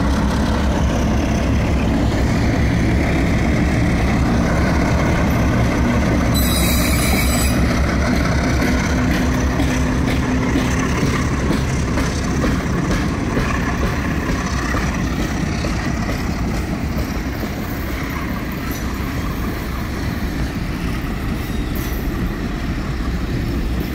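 Passenger train passing close by: two diesel locomotives running past with a deep engine hum, then passenger coaches rolling by with a steady rumble of steel wheels on rail. A brief high squeal comes about seven seconds in.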